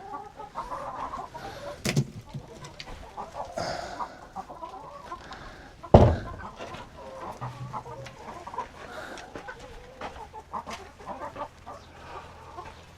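Chickens clucking softly around the coop, with a sharp knock about six seconds in and a lighter one near two seconds.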